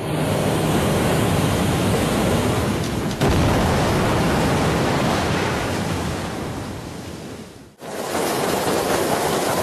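Steady, loud roar of a severe windstorm, an even rushing noise with no distinct tones. It breaks off sharply about three seconds in, and fades away then starts again near eight seconds.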